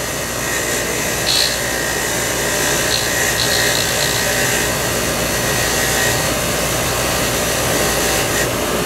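Bench grinder running steadily, with a brake caliper bleeder screw held against its spinning wheel to clean off the gummed-up gook clogging it. The grinding gets briefly louder about a second and a half in and again around three to four seconds in.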